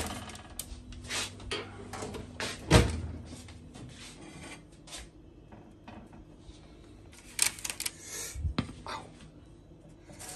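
Knocks and clatter from handling a metal baking tray of freshly baked burger buns on the stove top. The loudest knock comes about three seconds in, and a cluster of knocks follows about seven to eight seconds in.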